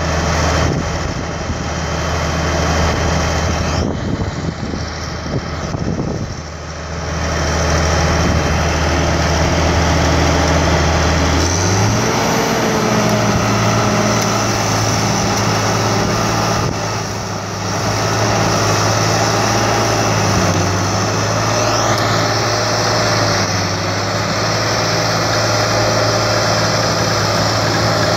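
Heavy diesel engines running steadily during a cable recovery of a tipped track loader. About eleven and a half seconds in, the main engine note steps up to a higher pitch and holds there, as it is brought up to speed for the pull.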